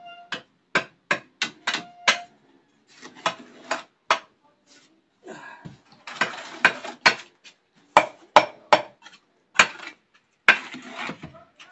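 A mason's steel trowel knocking and scraping on concrete hollow blocks and in a mortar bucket: a quick run of sharp taps, then rough scrapes as mortar is scooped and spread, then a few more sharp taps and a last scrape near the end.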